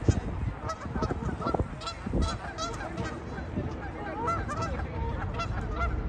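Canada geese honking: a quick run of short honks throughout, several calls overlapping.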